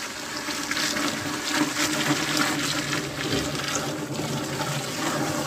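Milk pouring in a steady stream from an aluminium jug through a cloth strainer into a large aluminium pot.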